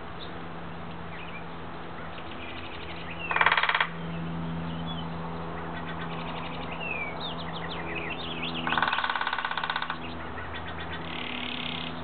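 Downy woodpecker drumming on dead timber bamboo in two rapid rolls, one a few seconds in and a slightly longer one near the end, with small birds chirping faintly in between.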